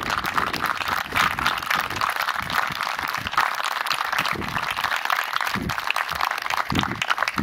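Crowd applauding: many people clapping in a steady, dense patter.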